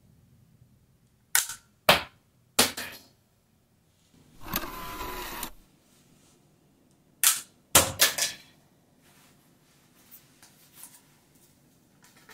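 Sharp plastic clicks and knocks from a toy pistol that launches a small plane, in two clusters of three or four a few seconds apart. About a second of rushing noise comes between them.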